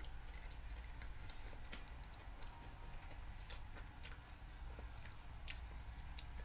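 Faint mouth sounds of someone chewing a cotton candy Peeps marshmallow candy: a handful of soft clicks and smacks, mostly in the second half, over a low steady hum.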